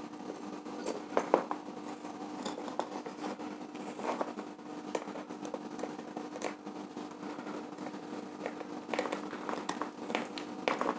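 Faint small clicks and scratches of wire handling and a small screwdriver working the brass screw terminal of a bulb holder, as two wires are fastened into it.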